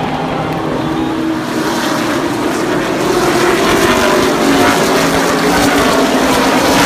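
Pack of NASCAR Cup stock cars with V8 engines accelerating on a restart, their combined engine note growing louder and rising slightly in pitch as the field approaches.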